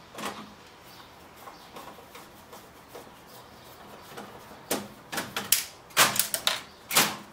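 Screwdriver work and handling of a flat-screen TV's metal chassis: a few seconds of faint turning and scraping, then a quick run of sharp clicks and knocks about two-thirds of the way in.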